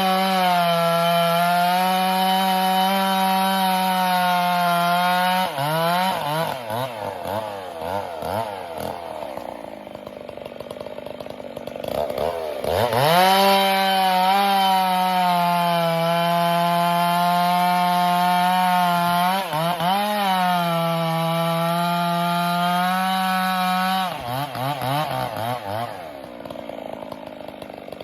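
Two-stroke chainsaw cutting through firewood logs at full throttle, its pitch held steady under load. It drops back to a lower, wavering idle about six seconds in, revs up again around twelve seconds and cuts steadily, then falls back to idle near the end.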